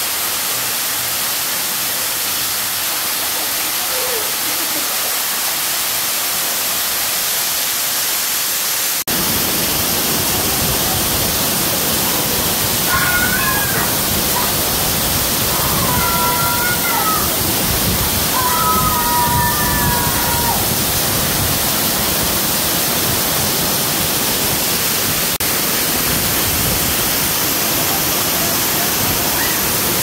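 Waterfall pouring down onto rock and water, a steady rushing noise that turns louder and deeper about nine seconds in. A few short voice calls sound over it in the middle.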